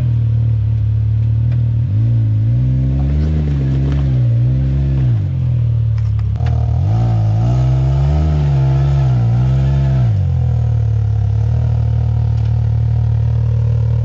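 Side-by-side UTV engine running steadily, then revved in two spells of about three seconds each, its pitch rising and wavering with the throttle before dropping back. The driver is working the gas on a steep, rocky trail hill climb.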